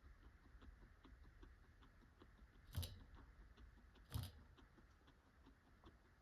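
Guinea pig chewing pellets: faint, rapid crunching throughout, with two louder sharp crunches a little over a second apart in the middle.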